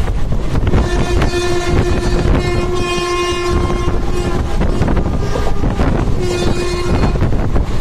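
Steady rumble and wheel clatter of a train running at speed, with a train horn sounding a long blast from about a second in for some three seconds, then a shorter blast a little after six seconds.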